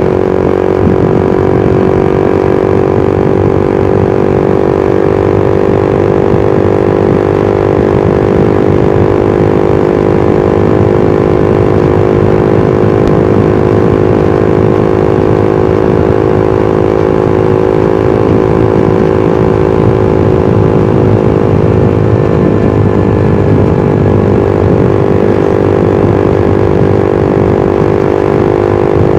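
Suzuki GSX-R150's single-cylinder engine and exhaust running at a steady cruise. The engine note holds at a near-constant pitch, with a rough low rumble underneath.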